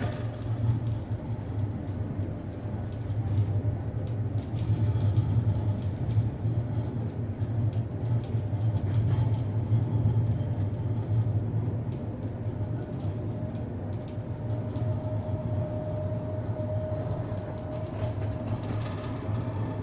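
Tram car 1117 running, heard from inside: a steady low rumble with heavy knocking from the wheels and running gear, taken for worn wheels or track. A thin motor whine comes in about two-thirds of the way through and rises slightly.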